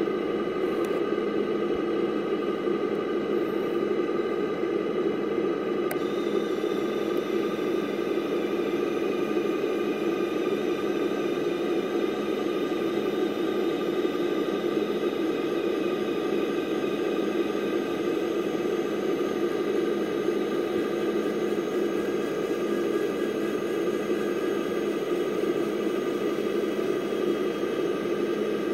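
The bed drive of a scratch-built RC rollback tow truck whirring steadily as the tilted bed lowers flat under a loaded model pickup. A higher whine joins about six seconds in.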